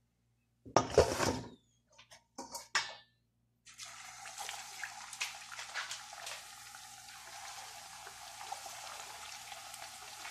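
A loud clatter about a second in and a couple of short knocks around two and a half seconds, then the steady crackling sizzle of masa quesadillas deep-frying in hot oil in a stainless steel pot.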